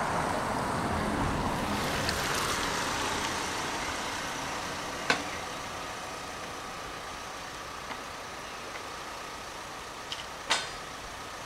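A car passing on a wet road, its tyre hiss loudest in the first few seconds and then fading as it drives away. Two sharp clicks, one about five seconds in and a louder one near the end, stand out above the hiss.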